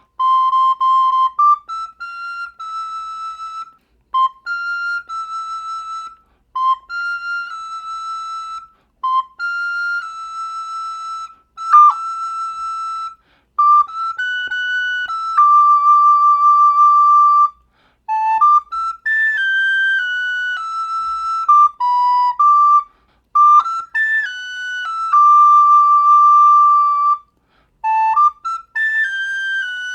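Soprano recorder playing a slow melody alone, one clear note at a time in steps, with short breaths between phrases and a few notes held long.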